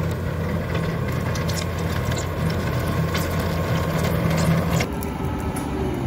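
Bobcat T650 compact track loader's diesel engine running steadily under work, with frequent sharp clicks and rattles from the machine and its bucket on the dirt and gravel. About five seconds in, the clicks stop and the engine note changes to a lower, smoother drone.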